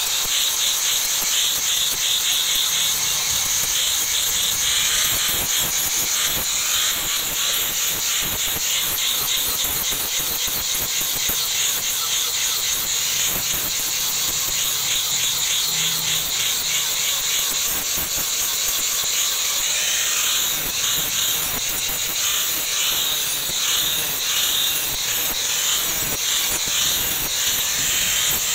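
Angle grinder with a flap disc grinding and smoothing the flat of a steel knife blade: a steady hiss of abrasive on steel, running without a break.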